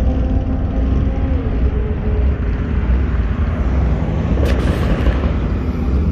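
Car engine and exhaust noise with a deep, steady rumble and a held tone that drops in pitch about a second and a half in.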